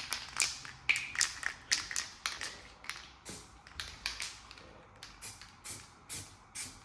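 Aerosol can of primer spraying in short hissing bursts, irregular at first, then steadily about two a second.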